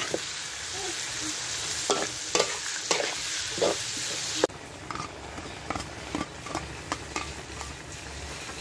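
Metal spatula scraping and knocking against a wok as food stir-fries in sizzling oil. About halfway through, the sizzle drops away suddenly, and the spatula strokes go on over a quieter fry.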